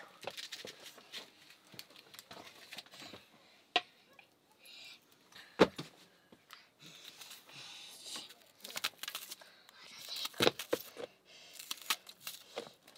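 Close handling noises: irregular crinkling and rustling with scattered clicks, and a few sharp knocks about four, six and ten seconds in.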